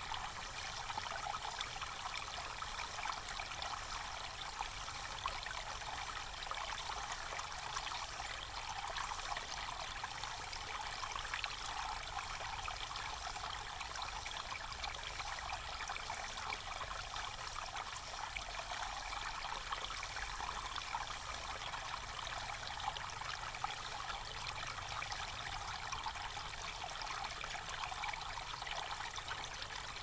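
Water trickling from a bamboo spout and splashing onto wet rocks below, an even, unbroken pouring sound.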